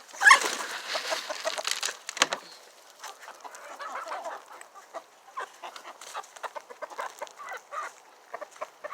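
A flock of chickens clucking in short, scattered calls, with a loud rustling burst over the first two seconds.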